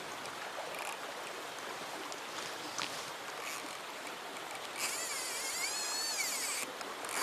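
River water running steadily. About five seconds in, a high wavering whine lasts about two seconds.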